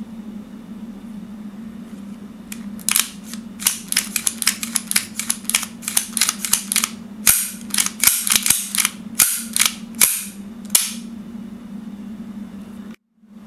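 Armorer Works Hi Capa 5.1 gas blowback airsoft pistol firing a long string of sharp shots, about three a second for some eight seconds, over a steady low hum.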